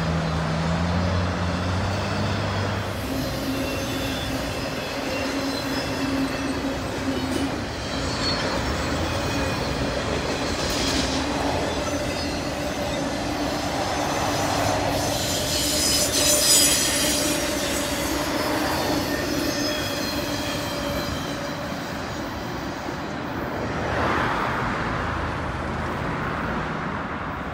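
Intermodal freight train's container well cars rolling past, steel wheels on rail with a steady whine and a louder high squeal about halfway through. The sound eases a little near the end as the last cars go by.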